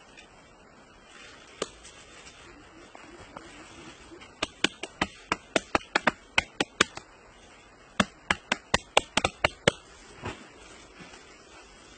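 A bare hand slapping wet mud onto an earthen pit wall: two quick runs of sharp slaps, several a second, with a pause between them.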